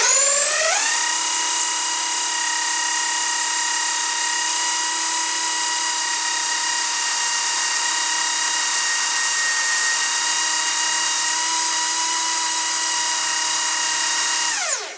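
Bosch corded drill driving a homemade belt sander, revving up to full speed with a rising whine, then running steadily at full speed while a scrap of wood is sanded on the fine-grit belt. It winds down and stops near the end. The drill runs flat out because the sander has no speed control.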